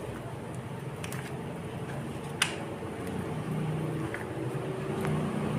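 An engine's steady low hum that grows louder over the last couple of seconds, with one sharp click about halfway through.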